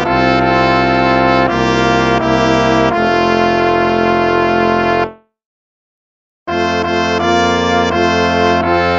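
Instrumental hymn music of held chords changing every second or so; it stops about five seconds in and starts again about a second and a half later.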